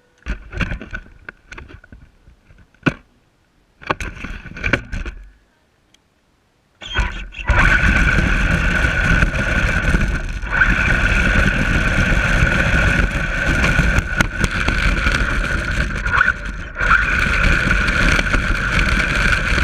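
Radio-controlled toy truck running: a steady motor whine with drive noise starts about seven seconds in, after a few scattered knocks and clicks.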